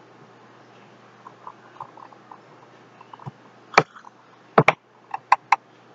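Computer mouse button clicks while drawing schematic wires: light faint tapping at first, then about six sharp clicks in the second half, some in quick pairs.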